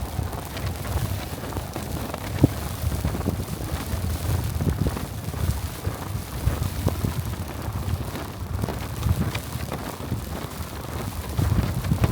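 Blizzard wind buffeting the microphone in an uneven low rumble, with a hiss of blowing snow and a sharp click about two and a half seconds in.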